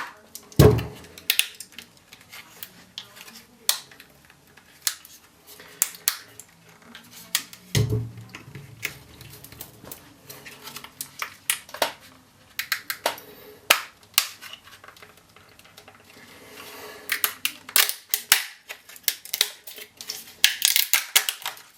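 Plastic case of a laptop battery pack being pried and cracked open with a tool: irregular sharp clicks and snaps, two dull thumps, and a denser run of clicking and rustling near the end.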